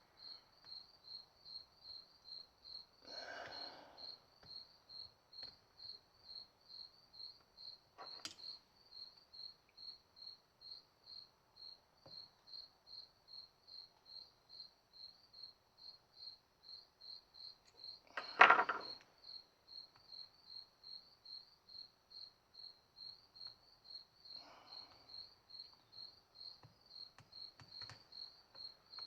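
A cricket chirping steadily at about three chirps a second, with a few faint rustles and clicks of parts being handled and one louder knock about two-thirds of the way through.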